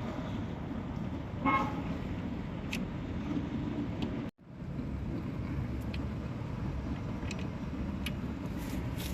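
Steady low traffic rumble with a short car horn toot about a second and a half in. A few sharp clicks sound through the rest, and the sound drops out for a moment just after four seconds.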